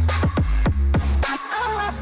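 Electronic outro music with a heavy bass and quick falling synth sweeps, several each second, over sharp percussive hits.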